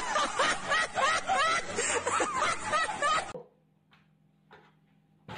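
A person laughing in quick, high-pitched snickering bursts, which cuts off suddenly about three seconds in. After that comes only a faint steady hum with a couple of soft clicks.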